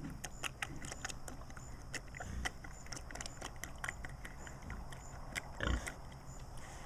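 Gloucestershire Old Spot pig with its snout in a water bowl, drinking: irregular wet slurping and smacking clicks, with one louder, deeper noise about two-thirds of the way through.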